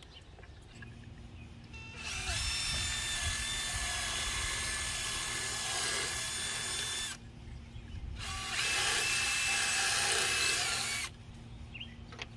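Cordless drill boring out pre-drilled holes in a plastic mounting bracket, running in two steady whining bursts: a longer one about two seconds in, and a shorter one after a brief pause.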